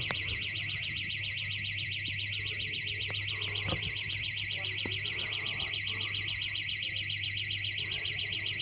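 High-pitched electronic alarm sounding continuously, pulsing rapidly at several beats a second, over a low steady hum, with a few faint clicks.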